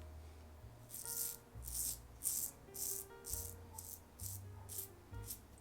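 Rockwell safety razor on its number 2 plate scraping through lathered stubble against the grain: about nine short, crisp strokes, roughly two a second. This is the 'toast' sound, like buttering toast, that shows the blade is cutting well.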